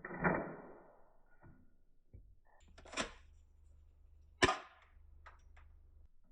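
Toy Glock 18 pistol being worked by hand: a knock at the start, then two sharp mechanical clicks about three and four and a half seconds in, the second the loudest.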